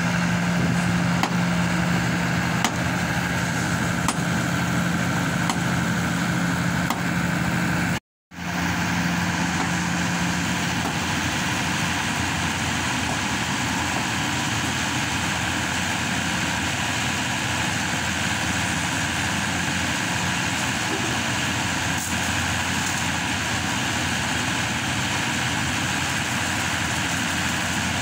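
Hydraulic static pile driver's engine and hydraulic power unit running steadily, with a low hum in the first few seconds and a brief total dropout about eight seconds in.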